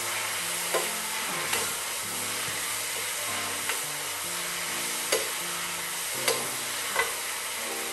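Stir-fry vegetables sizzling in a hot wok with a splash of vinegar just added, stirred with a metal spatula that clicks against the pan about five times.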